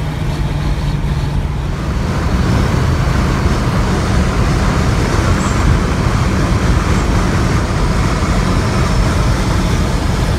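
Steady road, wind and engine noise inside a Ford Thunderbird cruising at freeway speed, with a low rumble under it, growing a little louder about two seconds in.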